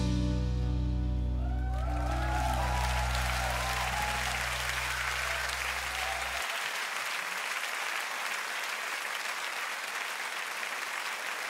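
A rock band's final chord ringing out, its low notes stopping suddenly about six seconds in, while a live audience applauds and cheers.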